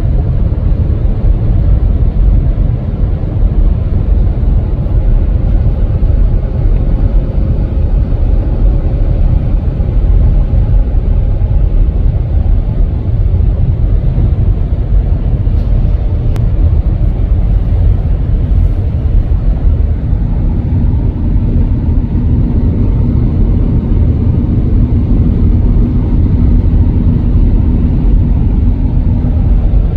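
Steady road and engine rumble of a moving car heard from inside the cabin, with a low steady hum joining about two-thirds of the way in.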